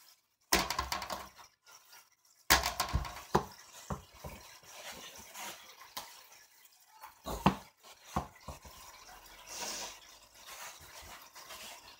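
A ball knocking and bouncing off hard surfaces in a room: a few separate sharp knocks at irregular intervals, with quieter shuffling between them.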